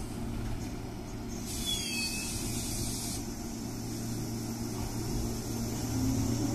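Meitetsu 6800 series and 6000 series electric train starting off from a station: a steady low hum, a short hiss of air about a second and a half in, then a rising motor whine near the end as it picks up speed.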